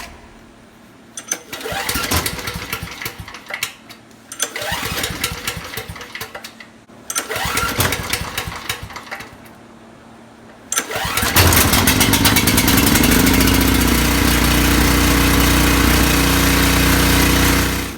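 Briggs & Stratton engine on a Coleman Powermate 6250 generator being pull-started: a few pulls of the recoil starter, then about eleven seconds in it catches, revs up and settles into steady running, now that the bad fuel shutoff valve and fuel line have been replaced.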